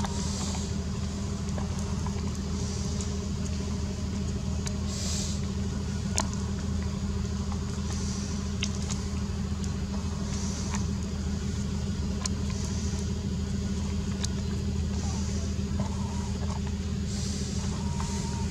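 A steady low motor hum runs throughout, with a faint high hiss pulsing about every two seconds and a few short sharp clicks.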